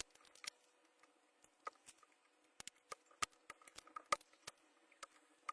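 Faint, irregular light clicks and taps of tools and hands working a faulty lithium-ion cell out of an electric scooter's battery pack.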